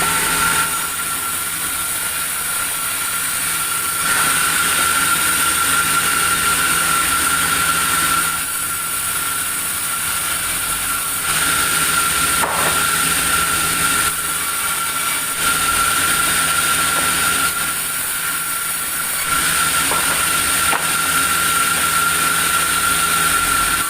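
Sawmill saw running with a steady high whine over a noisy rush. It gets louder in stretches of a few seconds at a time as the blade works through the wood.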